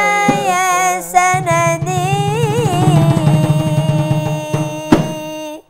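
Voices singing the closing phrase of an Arabic devotional ibtihal, melismatic lines ending on a long held note with a wavering pitch that cuts off just before the end.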